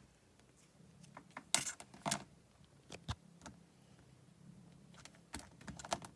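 Irregular light clicks and taps, the loudest about one and a half and two seconds in, over a faint low hum.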